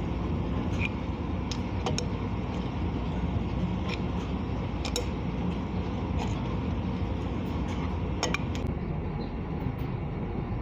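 Adjustable wrench working loose the threaded fitting of a steam boiler's water-level sensor probe: a handful of light metal clicks and clinks over a steady low rumble.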